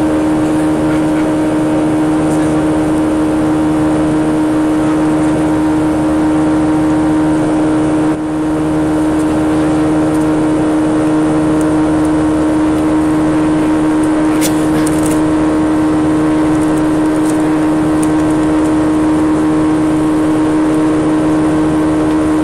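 Boeing 737 cabin noise heard from a window seat beside the engine: the turbofan's steady drone with a strong held hum and rushing airflow while the airliner climbs. The level dips briefly about eight seconds in.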